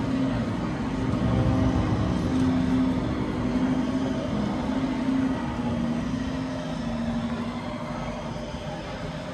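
Roller-coaster train running on steel track, a wavering rumble that is loudest in the first few seconds and then fades away.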